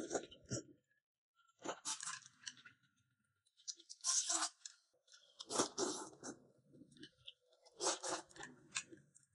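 A person eating noodles with noisy chewing, in about five short bursts a second or two apart.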